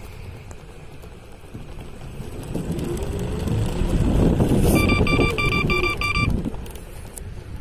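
Xiaomi Ninebot S Plus self-balancing scooter speeding up, its hub motors whining higher over a low rumble of wheels and wind. At the fastest point it gives a quick run of about six electronic beeps, the scooter's over-speed warning, then the whine falls away as it slows.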